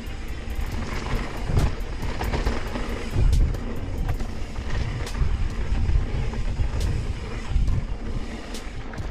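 Mountain bike riding on a trail: a low, uneven rumble of wind on the microphone and tyres rolling over dirt, with many short, sharp clicks and rattles.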